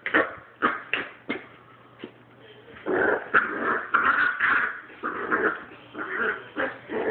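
Dogs in rough play: a puppy's fierce yips and barks at an older dog, in short sharp bursts, a lull about two seconds in, then a dense, loud run of barking and yipping from about three seconds on.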